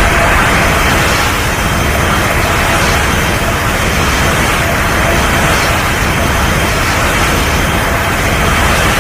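Kaiju sound effect for Magamaga Arch Belial: a loud, steady rushing roar like a jet engine or an energy blast, held without a break.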